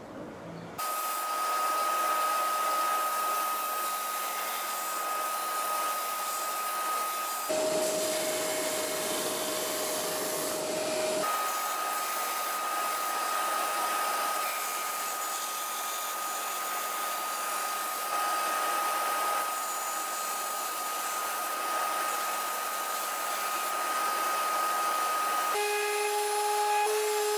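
Electric sanders running, a steady motor whine over the rasp of wood being sanded. The whine drops in pitch for a few seconds, then returns. About two seconds before the end a different, lower-pitched whine takes over: a random orbital sander smoothing a small piece of wood.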